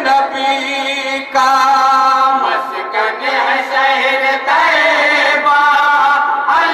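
A group of men chanting an Urdu naat together in unison, holding long notes with wavering turns between them.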